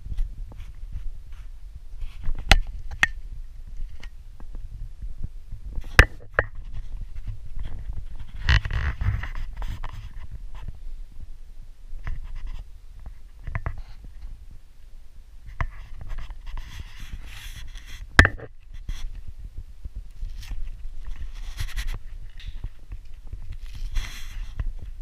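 Handling noise from a camera held close in the hand: a steady low rumble with scattered sharp clicks and a few stretches of soft rustling.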